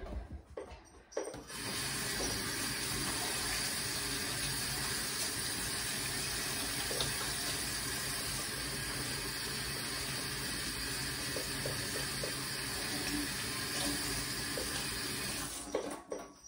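Kitchen tap running steadily into the sink, turned on about a second and a half in and shut off abruptly near the end. A few light knocks come just before it starts.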